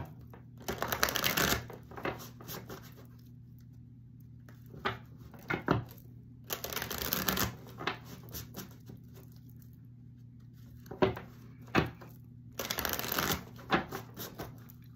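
Tarot cards being shuffled in three rustling bursts of about a second each, with sharp taps of the cards in between.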